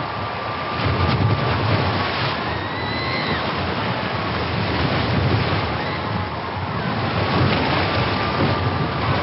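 Sound-design ambience of a ship sinking at sea: a dense, steady wash of ocean waves and wind over a heavy low rumble, with a few faint high wavering tones drifting over it.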